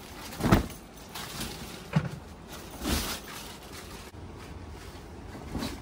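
A bed sheet and its packaging being handled, with a few brief rasps and rustles, the loudest about half a second in and others around two and three seconds in.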